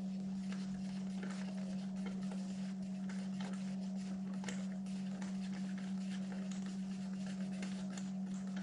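A steady low hum, with faint, scattered light clicks of a screwdriver turning out a screw in a car's door trim panel.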